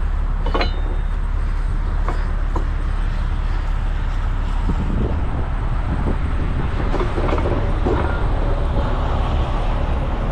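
Peterbilt 389X rotator tow truck's diesel engine running steadily with a low rumble while its hydraulic wheel-lift is positioned, with a sharp click about half a second in.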